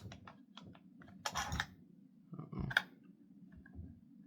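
Metal clicks and short scrapes of SKS rifle parts being fitted together by hand, in a few irregular clusters.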